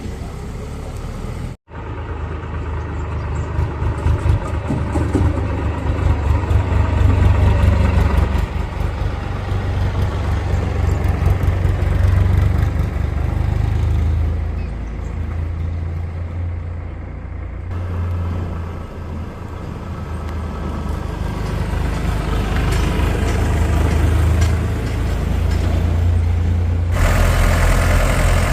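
Heavy diesel engine of farm machinery running, its speed and load rising and falling, with abrupt changes in the sound where the footage cuts.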